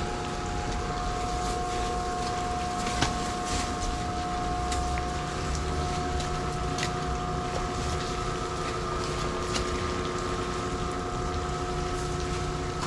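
Machinery running with a steady, even hum of several constant tones, with a few sharp knocks and slaps scattered through it as fish and ice are handled in the hold.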